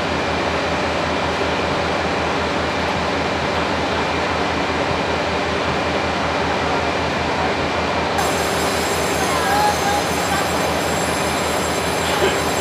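Taiwan Railway R100-class diesel-electric locomotive idling, its engine running at an even, steady level.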